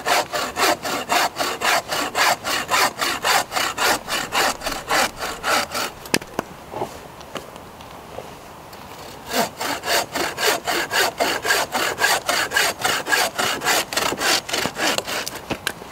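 Bow saw cutting through a wet log, rasping back and forth at about three strokes a second. The sawing stops about six seconds in and starts again some three seconds later.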